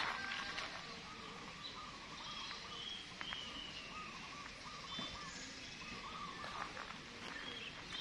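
Several birds chirping and calling in short, repeated warbling phrases over steady outdoor background noise, with a few faint clicks.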